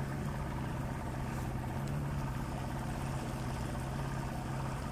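Outboard motor running steadily at low trolling speed, a constant low engine tone with no change in pitch.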